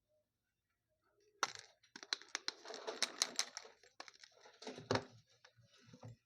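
Packaging handled by hand during an unboxing: a flurry of crinkles and quick sharp clicks starting about a second and a half in, thinning out by about five seconds into a few soft knocks.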